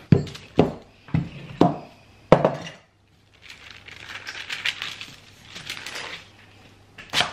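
Wooden rolling pin knocking on the table five times, about twice a second, while rolling out fondant on baking paper. Then the baking paper crinkles as the rolled sheet of fondant is peeled off it, and there is one more sharp knock near the end.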